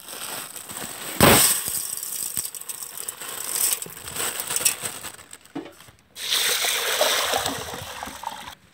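Dry chana dal (split Bengal gram) poured from a plastic bag into a metal pot, the grains rattling and hissing against the metal, with a loud clatter about a second in. About six seconds in, water is poured over the dal from a jug in a steady gushing splash, to soak it.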